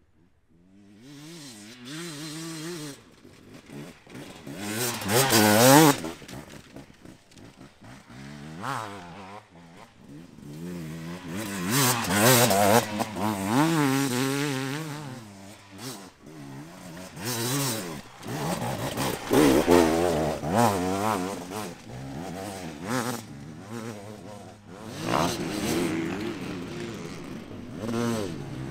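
Enduro dirt bike engine revving hard through a dirt test, the pitch rising and falling with throttle and gear changes. It swells loud as the bike passes several times, with quieter stretches between.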